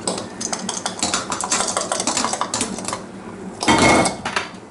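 Metal utensil clicking and tapping against a saucepan in quick succession, prodding the food to test whether it has cooked soft, with a louder clatter near the end.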